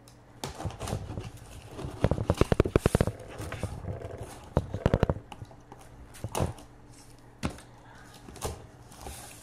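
A cardboard parcel being opened with a knife: rapid crackling runs of packing tape being slit and pulled away, about two seconds in and again near five seconds, followed by a few separate knocks and scrapes of the box.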